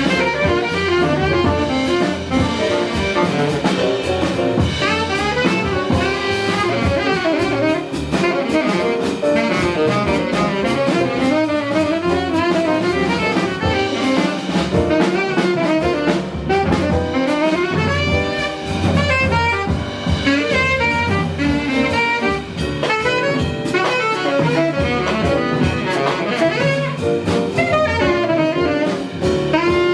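Jazz band playing live: a saxophone takes the lead in quick, winding runs of notes over piano, double bass and drums.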